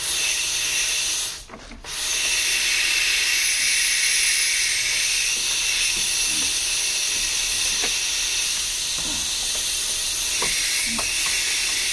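Steady hiss of compressed air, cutting out briefly about a second and a half in and then running on, with a few faint light knocks.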